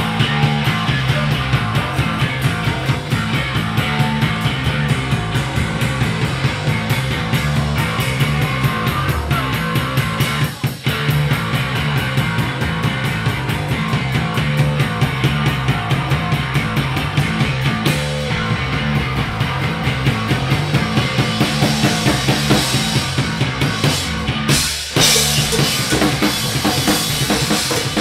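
A live rock band playing loud, with a drum kit keeping a steady fast beat under bass and guitar. The music cuts out for a split second twice, about ten seconds in and again near the end.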